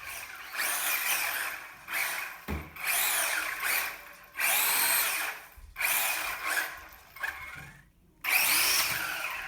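Brushed electric motor of a WLtoys 20402 1/20 scale RC monster truck whining in repeated short throttle bursts, its pitch rising and falling with each burst. There is a low thump about two and a half seconds in.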